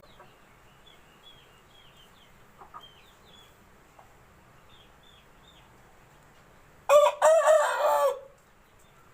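An Aseel rooster crows once, loudly, about seven seconds in, for just over a second. Before it, small birds chirp faintly.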